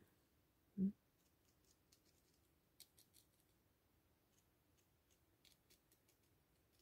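Near silence with faint handling of craft materials on a table: one soft thump about a second in, then a few scattered light ticks and clicks.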